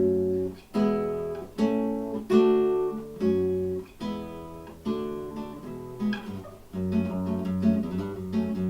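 Acoustic guitar playing a song intro: full chords strummed about once a second, each left to ring, then from about seven seconds in a quicker, busier strumming pattern.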